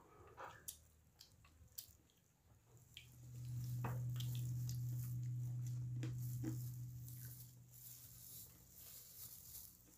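Eating by hand: soft wet chewing and small smacking clicks. A low, steady hum swells in about three seconds in, is the loudest sound for a few seconds, and fades out near the end.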